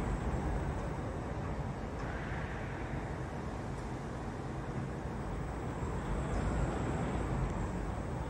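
Compact coil cut-to-length line running, decoiler, straightener and servo feeder working together, giving a steady, low mechanical rumble with a faint high whine that comes and goes.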